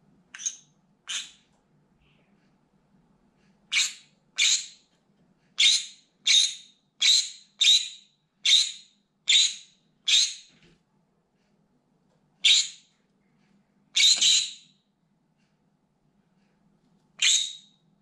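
Green-cheeked conure screaming: about fourteen short, shrill, loud calls, two at the start, then a fast run of roughly one or two a second, then a few spaced-out calls, one of them longer and doubled.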